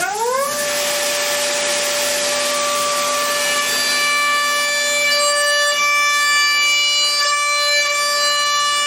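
CNC machine spindle spinning up with a rising whine in the first half second, then running at a steady high whine over a constant hissing noise. More high overtones join the whine from about three seconds in.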